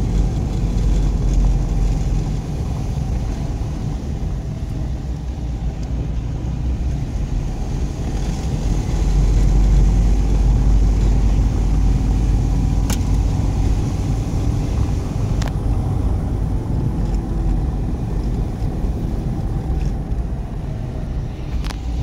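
A car driving slowly on a paving-stone road, heard from inside the cabin: a steady low rumble of engine and tyres, with two faint clicks about halfway through.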